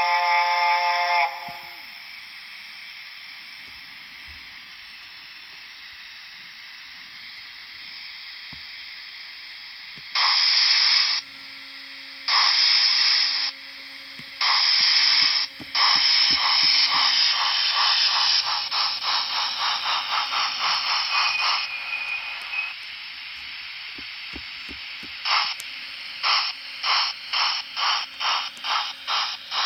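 Dapol A4 Mallard model's DCC sound decoder playing steam-locomotive sounds through its small speaker. A whistle cuts off about a second in, then a steady steam hiss. Around the middle come three loud bursts of cylinder-cock steam, then rhythmic chuffing that fades into hiss; near the end the chuffing starts again at about two beats a second.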